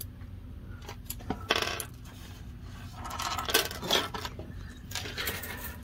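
A metal bead bracelet's charms and clasp clinking and jingling as it is handled, in several short rattles with a few light clicks between.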